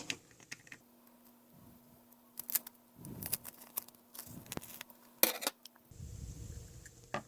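Faint scattered clicks and short rustles of hands working a thin strip of duct tape around a cut-down plastic bottle, with one sharper click a little over five seconds in.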